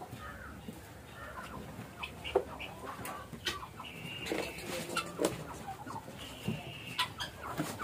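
A flock of chickens clucking, with two drawn-out high calls about four and six and a half seconds in.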